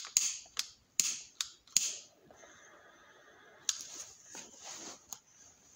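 Butane torch lighter clicked over and over, each click followed by a short hiss of the jet, while lighting a tobacco pipe; the lighter is struggling to catch. A quieter steady hiss follows, and a little before four seconds a click and then a long breath blown out.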